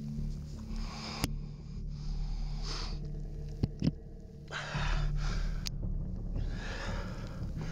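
A person breathing close to the microphone in several audible breaths, with a few sharp clicks and a low steady hum underneath.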